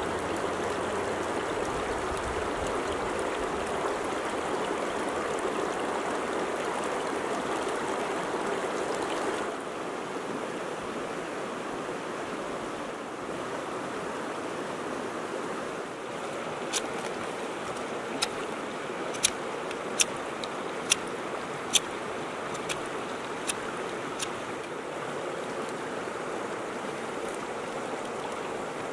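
River water rushing steadily over a stony bed, dropping slightly in level about a third of the way in. From just past the middle, a series of sharp clicks about once a second as a small fixed-blade knife cuts into hard, dry driftwood.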